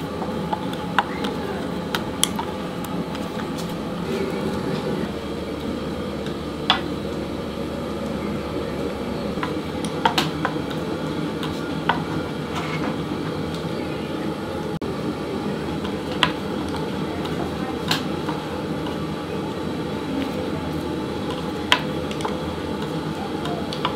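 Fuchka dough being rolled out with a white pipe rolling pin on a flour-dusted wooden board: a steady rubbing rumble, broken by occasional sharp knocks of the pin against the wood.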